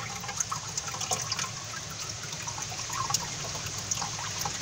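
Water poured slowly from a bucket into a pond, trickling and splashing steadily with many small drips.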